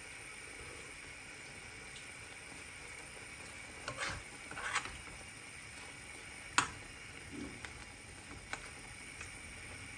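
A metal spoon scrapes and clinks against an aluminium frying pan a few times, starting about four seconds in with the sharpest clink about two-thirds through, as shrimp and mussels in garlic-butter sauce are spooned and stirred. Under it, a steady faint hiss from the simmering pan.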